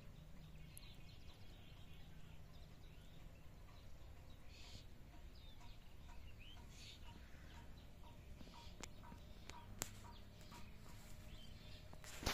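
Faint open-country ambience: scattered distant bird chirps and calls over a steady low rumble. Two sharp clicks come near the end, then a brief rustle.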